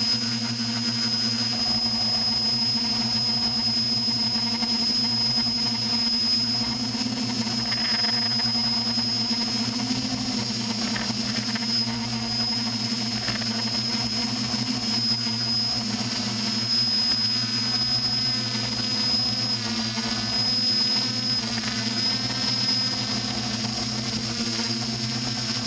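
Multicopter's electric motors and propellers running steadily in flight, heard through the camera mounted on the craft: a high steady whine over a low hum, shifting slightly in pitch now and then.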